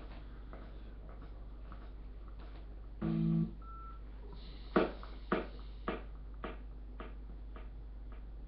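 Steady low electrical hum, a brief low tone about three seconds in, then a series of evenly spaced knocks, about two a second, that grow steadily fainter.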